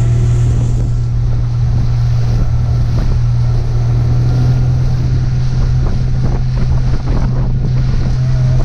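Motorboat engine running steadily under way, a constant low drone, with wind buffeting the microphone and water rushing past the hull.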